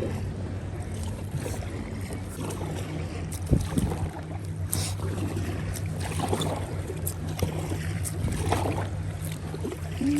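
Canoe paddling on a lake: irregular paddle strokes and water splashes about every second or so, over a steady low hum.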